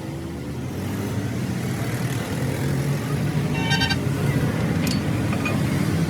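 Vehicle engine running steadily, with a short horn toot about three and a half seconds in and a few light metallic clicks.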